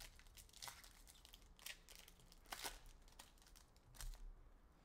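Faint crinkling and tearing of hockey trading-card pack wrappers and soft clicks of cards being handled, as a handful of small, scattered sounds.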